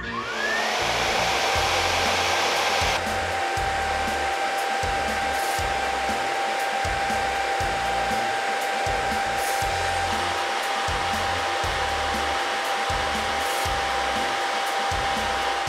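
A 120 mm Delta fan in a fume extractor spins up. Its whine rises quickly in pitch and settles into one steady tone over a strong rush of air. The running noise drops a little after about three seconds.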